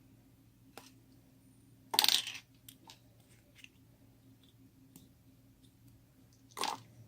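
Small hard objects dropped into a container with a short jingling clatter, twice: a loud one about two seconds in and a shorter one near the end, with faint clicks in between.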